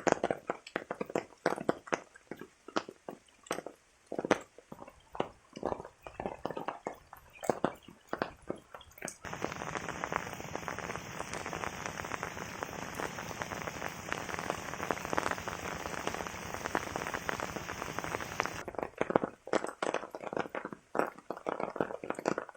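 Rain: large drops falling and splashing one by one at an uneven pace. About nine seconds in, a steady dense hiss of heavier rain starts abruptly, then stops just as suddenly after about nine seconds, leaving the scattered drops again.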